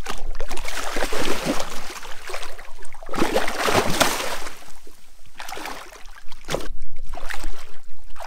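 Large blue catfish thrashing at the water's surface beside the boat, splashing in uneven surges, with the biggest burst of splashing about three to four seconds in.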